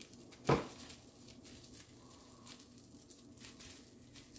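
Small taped bubble-wrap packet crinkling faintly as fingers pick at it, with one sharp crackle about half a second in.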